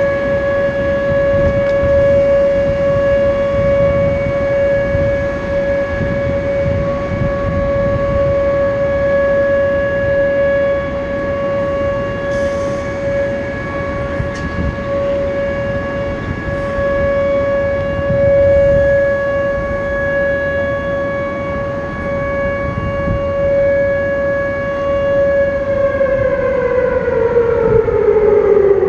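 Outdoor civil-defense warning siren holding one steady tone during its monthly test, its pitch falling as it begins to wind down near the end.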